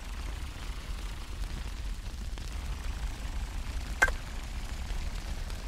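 Cartoon sound effects: a low steady rumble under a faint hiss, with one sharp click about four seconds in as the ambulance truck pushes the door open.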